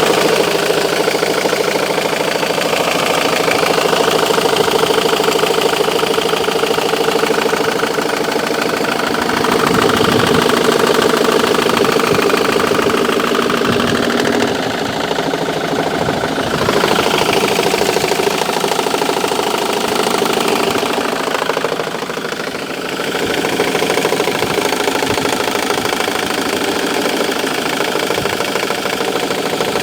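Diesel engine of a 2005 Ford Mondeo Mk3 running with a steady, rhythmic knock. The knock developed recently, and its cause is unknown.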